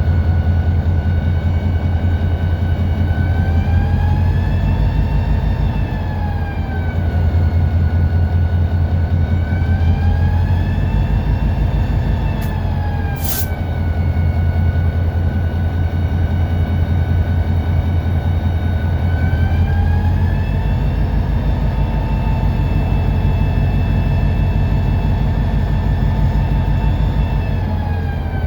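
EMD SD40-2 locomotive's 16-cylinder two-stroke diesel, heard from inside the cab, with a deep steady rumble. A whine rises and falls in long swells as the engine ramps up and down while moving a cut of cars. A brief sharp noise comes about 13 seconds in.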